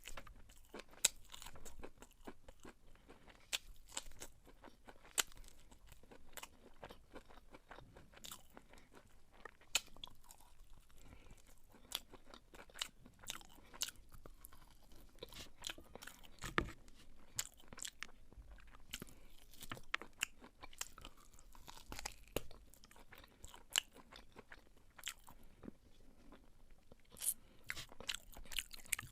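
Close-up eating sounds of a person chewing beef pilau: wet chewing and mouth noises with frequent irregular sharp clicks.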